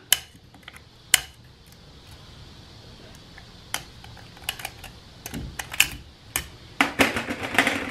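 Small screwdriver prying a steel snap ring out of its groove in a 47RE transmission's forward clutch retainer: irregular sharp metallic clicks and scrapes, a few at first and a quick cluster near the end as the ring is worked free.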